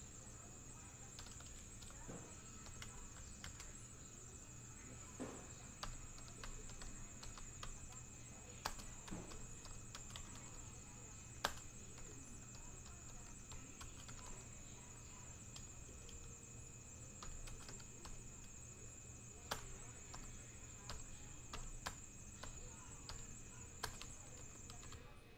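Scattered light clicks and taps of small objects handled on a desk, a couple of them sharper, over a steady high-pitched whine and a low hum. The whine cuts off shortly before the end.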